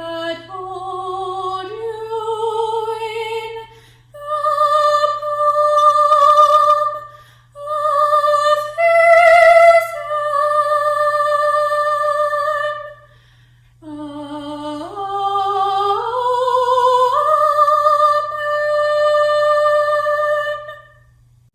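A woman's voice singing a slow, unaccompanied melody in several phrases. It rises in steps to long held notes with vibrato, over a steady low hum.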